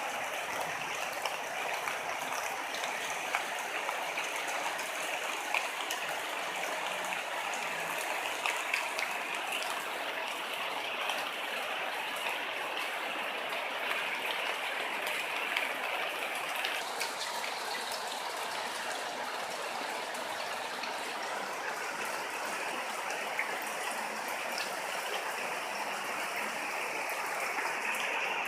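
Steady rain falling, a dense even hiss with scattered small drop ticks.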